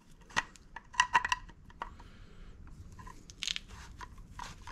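Screwdriver turning a wood screw through a steel M1917 rifle buttplate into a wooden Thompson buttstock: irregular sharp metallic clicks and short creaking scrapes, with a longer scrape about three and a half seconds in.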